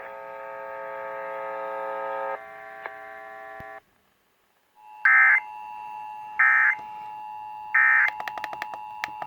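A steady chord of tones for about four seconds, a second of silence, then three short bursts of Emergency Alert System SAME header data tones about 1.4 s apart. Near the end the steady EAS two-tone attention signal sounds over rapid clicking, heard over FM radio.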